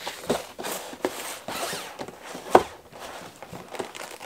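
A cardboard snack-cake box being handled and opened by hand: irregular scraping, tapping and rustling of cardboard, with one sharp snap about two and a half seconds in.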